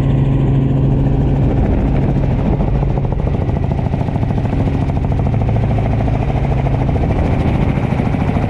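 Helicopter engine and rotor running steadily in flight, heard from inside the cabin with the door open: a loud, constant low drone with a fast rhythmic beating.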